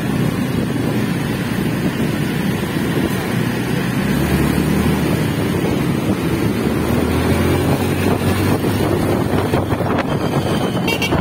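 Steady rumble of a vehicle moving through traffic, with wind buffeting the microphone.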